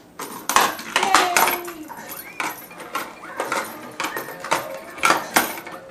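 Plastic balls clacking and rattling through a child's ball-drop ramp toy, a string of irregular sharp clicks.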